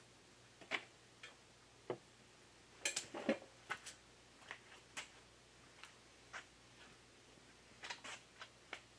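Faint, irregular clicks and light knocks of gear being handled on a wooden workbench, busiest about three seconds in.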